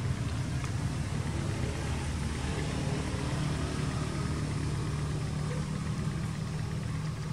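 A steady low engine rumble, like a motor vehicle idling.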